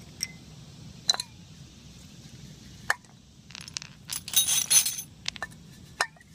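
Small metal parts and tools being handled and clinking together: scattered sharp clinks, some with a short ring, and a quick rattling cluster of clinks in the middle.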